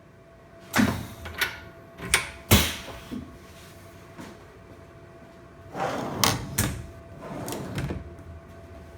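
Irregular knocks and clunks of handling: a few sharp ones in the first three seconds, then another cluster in the last third, over a steady faint hum.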